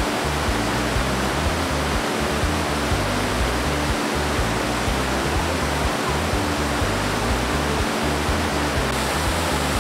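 Steady rush of a waterfall cascading over rocks, with background music of held low notes beneath it.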